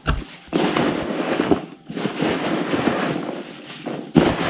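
Rustling and handling of a cardboard snack box and its packing, with a knock at the start and another near the end.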